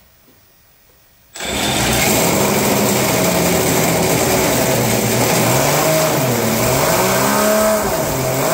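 Scale model V12 aero engine running on a test rig, driving a propeller. It cuts in loud about a second and a half in, and its pitch dips and climbs again a few times in the second half as it is revved.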